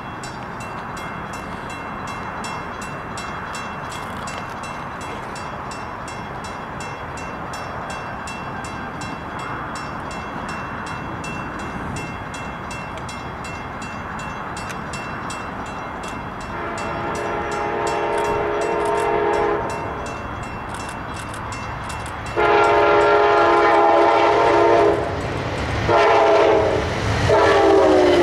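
Passenger train horn sounding the grade-crossing signal: two long blasts, a short one, then a final long blast whose pitch drops as the train passes. Before it comes a steady background rumble.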